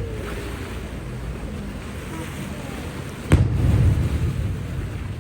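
Aerial firework shell bursting with a single sharp boom about three seconds in, followed by a low rumbling echo that dies away over a second or so. A faint falling whistle fades out at the very start, over a steady background of ambient noise.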